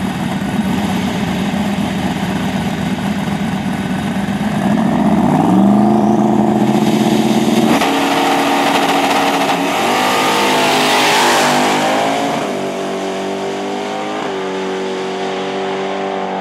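Drag race car engine running and revving, its pitch climbing about five seconds in and then changing in steps and wavering, loudest around ten to twelve seconds in.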